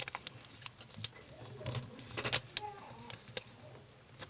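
Square of origami paper crinkling and rustling as it is handled and creased, in short scattered crackles with a denser burst about two seconds in.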